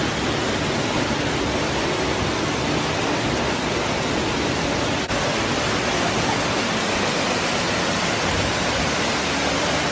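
Waterfall rushing: a steady, even noise of falling water, with a momentary break about five seconds in.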